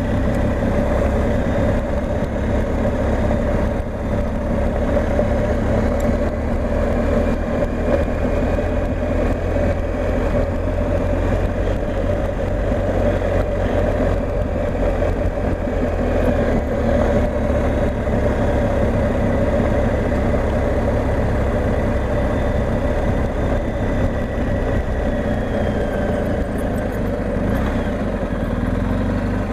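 BMW R 1250 GS Adventure's boxer-twin engine running steadily as the motorcycle is ridden along, with wind noise over it.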